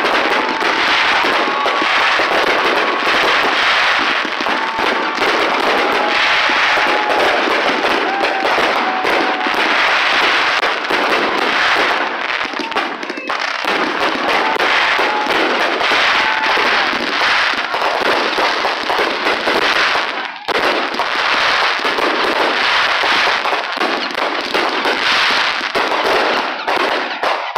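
Fireworks display: a dense, continuous barrage of aerial shell bursts, bangs and crackling stars, easing briefly twice in the second half.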